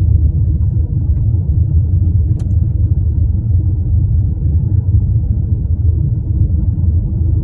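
Steady low rumble of a car's tyre and road noise while driving on a snowy road, heard from inside the car, with one short click about two and a half seconds in.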